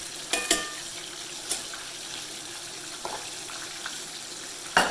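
Chicken thighs frying in a pot of hot canola oil, a steady sizzle, with a few sharp clinks of a metal utensil against the pot. One clink about half a second in rings briefly, and the loudest comes near the end.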